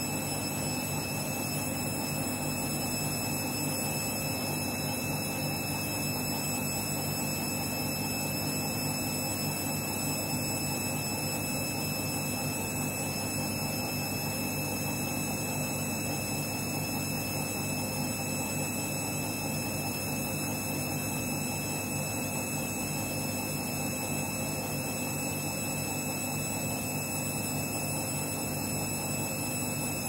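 Front-loading washing machine running steadily, a motor hum with a high whine over it; right at the end the whine starts to fall in pitch as the motor slows.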